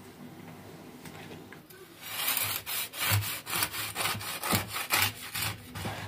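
A kitchen knife sawing back and forth through the crisp crust of a baked kefir sponge cake on a wooden board: quick rasping strokes, several a second, starting about two seconds in.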